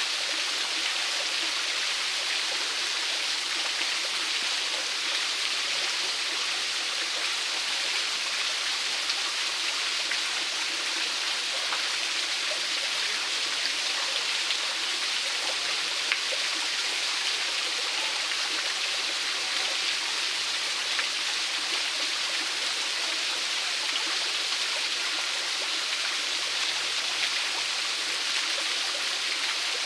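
Small waterfall splashing and running steadily over rock, a constant hiss of falling water with occasional brighter splashes.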